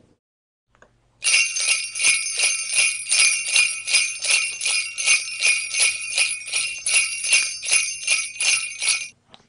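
Jingle bells shaken in a steady rhythm, about three shakes a second, starting about a second in and stopping just before the end.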